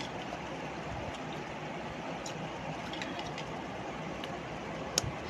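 Steady background noise, with a few faint clicks and one sharp click near the end.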